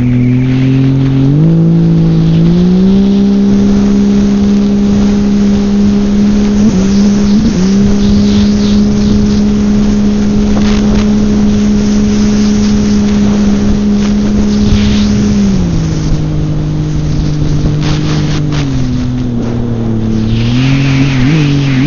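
Personal watercraft engine running under way. It climbs in pitch in two steps over the first three seconds, holds steady at high speed with a brief dip about seven seconds in, and drops back around sixteen seconds. It surges again near the end, with a hiss of water spray.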